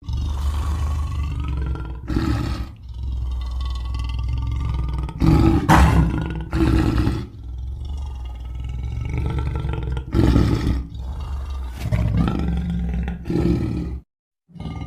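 Custom creature sound effects for Chunky the Macawnivore: a run of big-cat-style growls and roars over a steady low rumble. About six louder roars swell up, the strongest around six seconds in, and a short silent break comes near the end.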